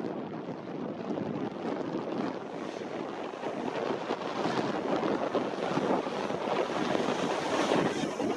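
Wind buffeting the microphone, a steady rushing noise mixed with the engines of a taxiing Boeing 737-800, growing louder toward the end.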